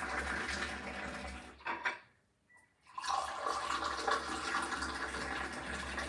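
Tea poured in a thin stream from a metal teapot held high into a glass, a steady splashing that stops about two seconds in and starts again about a second later.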